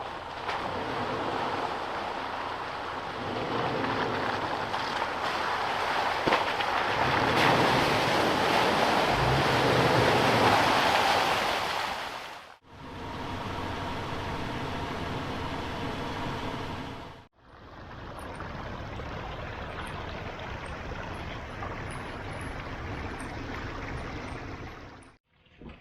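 Gusty wind rushing, swelling over the first dozen seconds, then cut off abruptly twice into two further stretches of steady wind noise.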